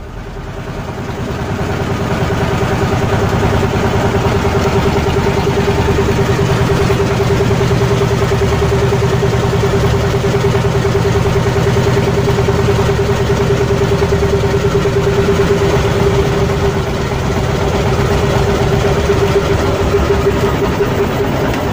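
Fishing boat's inboard engine running steadily, heard on board, with a steady whine over the engine drone.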